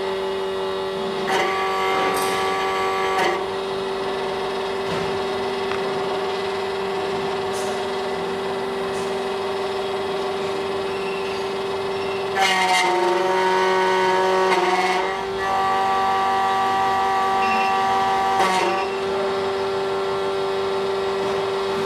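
SEC E9 automatic key cutting machine's cutter motor running with a steady hum while it cuts a new Schlage key blank. Louder, grittier spells of a few seconds come and go, with the pitch dipping slightly as the cutter bites into the blank.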